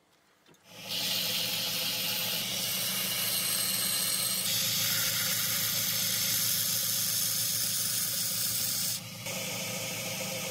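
Belt grinder running with a steel kitchen knife blade held against its sanding belt: a steady motor hum under a hissing grind that starts about a second in. The grind shifts briefly just after nine seconds, then carries on.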